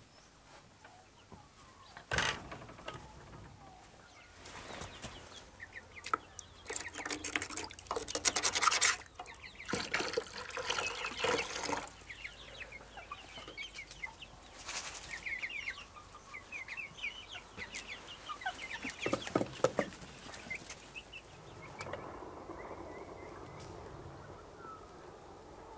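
Chickens clucking in short repeated calls, mixed with knocks and clatter of a bucket and kettle. For a stretch, water is poured into a drinking bowl.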